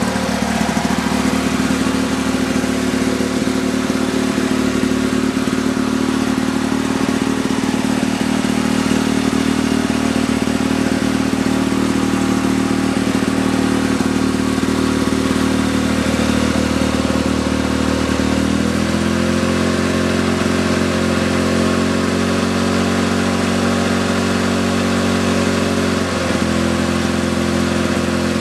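Rebuilt two-stroke engine of a 1965 Lawn Boy 19-inch model 5233 rotary mower running steadily. Its speed rises a little about two-thirds of the way through and eases back slightly near the end.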